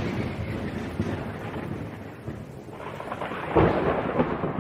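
Thunder sound effect: a rolling rumble with a hiss like rain that dies away, then a second rumble building about three seconds in.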